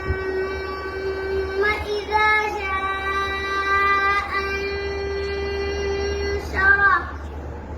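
A male reciter chanting the Quran, drawing one vowel out into a long, held melodic note with a few small turns in pitch, ending about seven seconds in. A steady low hum sits underneath.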